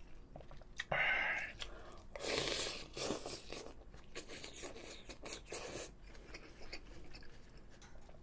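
Eating spoonfuls of rice soup: several short slurps with chewing in between.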